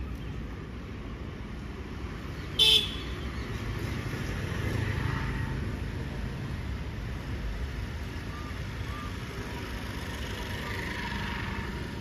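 Steady road-traffic rumble with a single short, loud vehicle-horn toot about two and a half seconds in.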